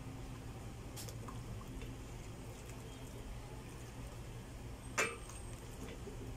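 Serving soup from a stainless steel pot with a wooden spoon: a light clack about a second in and a sharper knock with a brief ring about five seconds in, as the spoon strikes the pot. Faint sloshing of broth sits over a steady low hum.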